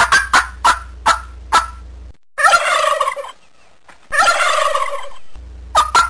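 Tom turkeys gobbling: a quick run of short, sharp calls, then two longer wavering gobbles of about a second each, then short calls again near the end.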